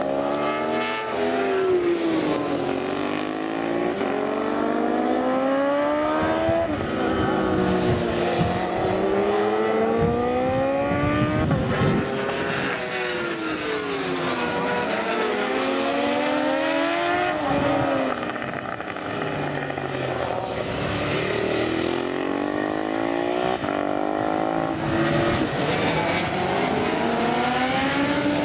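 Several 1000 cc superbike engines racing past, revving up through the gears in stepped climbs and dropping in pitch as they slow for corners, with engines overlapping.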